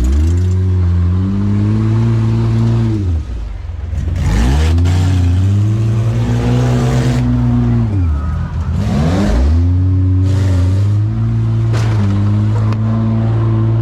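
Demolition derby van's engine revved hard and held high, twice dropping low and climbing back up, with a few sharp knocks in between.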